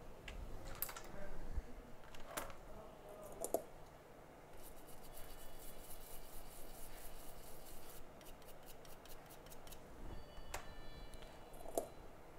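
Small metal hand tools at a microsoldering bench clicking and scraping: a few sharp clicks, then several seconds of rapid fine scratching, and a brief high ringing tone near the end.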